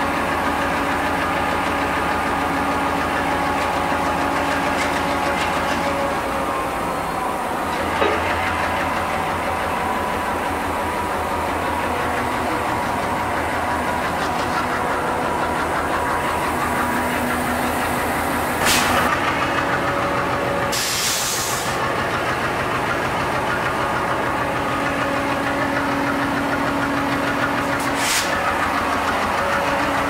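WDM-3D locomotive's 16-cylinder ALCO 251 diesel engine running with a steady, even chugging; its note shifts about a quarter of the way in. A short hiss of air comes in the second half, with a few sharp clicks.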